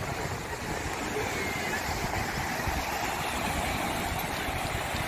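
Ocean surf breaking and washing up the sand, a steady rush of waves, with wind buffeting the microphone.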